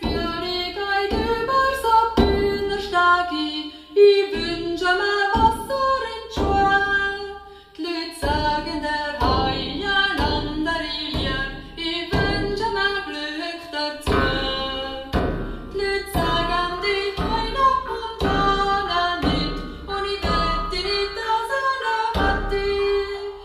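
Pop music with a female singer and a steady beat, played loud through a JBL PRX735 15-inch three-way powered PA speaker being demonstrated.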